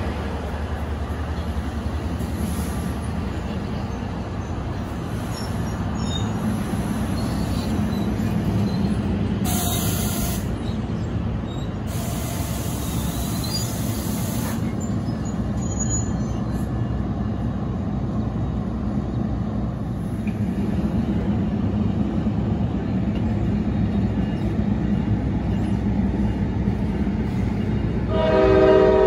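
NJ Transit multilevel commuter coaches rolling past, a steady rumble of wheels on rail, with two short hisses about ten and thirteen seconds in. A train horn starts sounding near the end.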